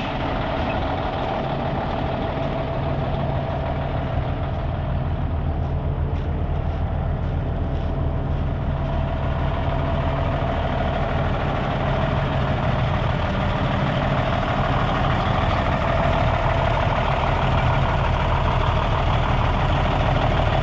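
A 2000 Peterbilt three-axle truck's diesel engine idling steadily, a little louder in the last several seconds.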